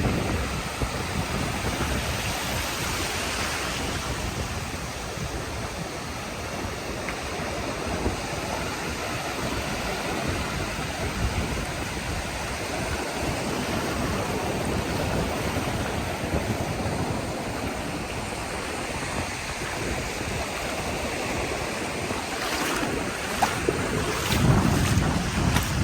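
Ocean surf washing steadily on the beach, with wind on the microphone; a few knocks and a stronger gust of wind come near the end.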